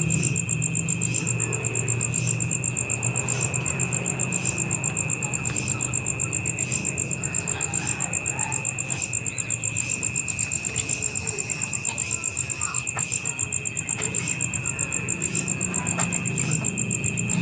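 Insects chirring: a steady, rapidly pulsing high trill with a second steady tone lower down, over a low hum.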